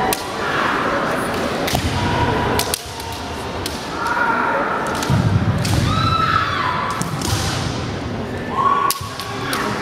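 Kendo bout: bamboo shinai clacking together in sharp knocks, with drawn-out kiai shouts from the fencers and low thumps, over the chatter of a busy sports hall.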